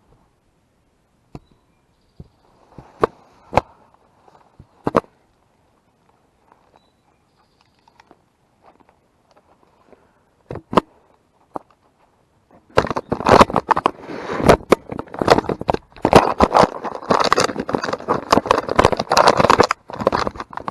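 A few scattered sharp snaps and clicks, then, about thirteen seconds in, a long spell of loud, dense, irregular crackling and rustling of dry leaves and brush close to a head-mounted camera.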